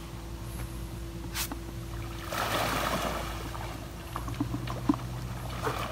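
Water splashing at a pond surface as farmed snakehead fish rise and strike at floating feed pellets, with a louder rush of splashing about two and a half seconds in.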